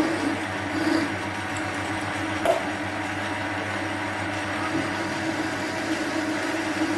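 Small metal lathe running steadily with a low motor hum, with one sharp click about two and a half seconds in.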